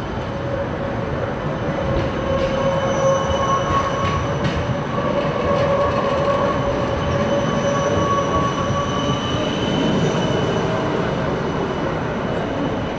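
A red Bern city tram, a Siemens Combino low-floor articulated tram, rolling past close by on street track. Its wheels run steadily on the rails, with a held electric whine in two steady tones that fades out a few seconds before the end.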